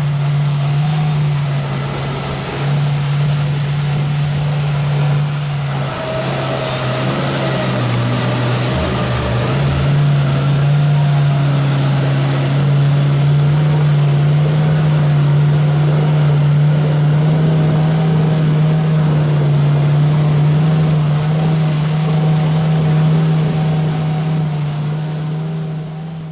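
Boat motor running at a steady cruising speed, a constant low drone under a rush of wind and water.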